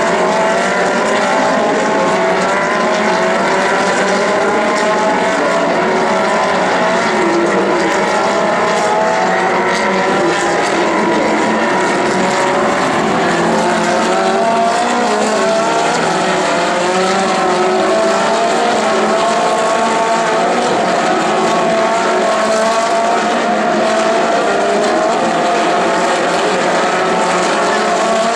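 Several Ferrari 458 Challenge race cars' V8 engines at high revs on track, their overlapping engine notes repeatedly climbing and falling as the cars accelerate and shift.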